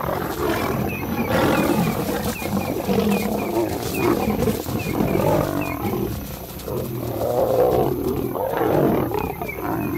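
Lions fighting: lionesses and a male lion snarling and roaring in a close clash, a continuous rough din with louder surges.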